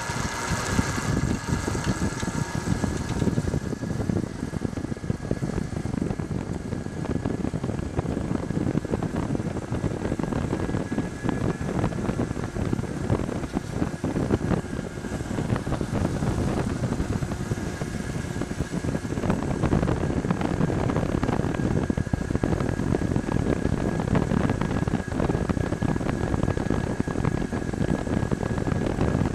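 Wind buffeting the microphone and road noise on a home-built electric motorcycle riding at steady speed, with a thin steady high whine running through it. There is no engine sound, since the bike is driven by a 24-volt electric motor.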